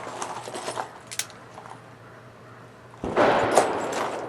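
A few faint clicks, then about three seconds in a single loud gunshot from a .45 Long Colt Ruger Vaquero single-action revolver, its report dying away slowly.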